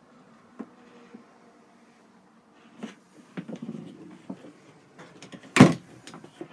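Motorhome washroom door and fittings being handled: a series of light knocks and clicks, then one loud knock near the end as the door is shut.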